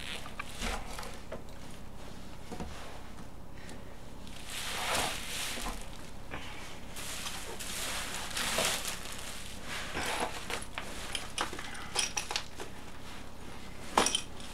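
Handling noises while unpacking a 3D printer from its box: two longer swells of rustling packaging and a scatter of light clicks and knocks, the sharpest near the end.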